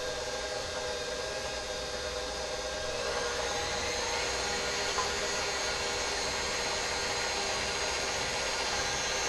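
Bowl-lift stand mixer running steadily, its motor whining as the beater whips eggs, growing a little louder about three seconds in.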